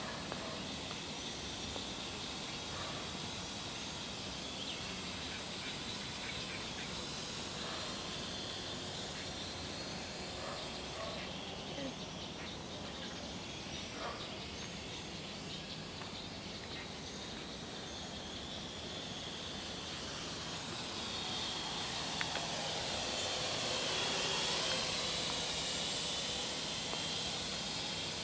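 Parrot AR.Drone quadcopter's four brushless motors and propellers whining in flight over a steady hiss. The whine grows louder about twenty seconds in, its pitch dipping and then rising again as the drone comes closest.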